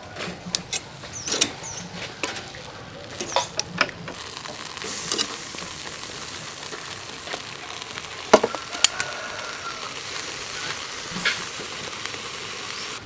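Metal tongs clicking against a metal bowl and a wire grill rack, then marinated quail sizzling steadily on the rack over a charcoal fire from about five seconds in, with a few more clicks of the tongs.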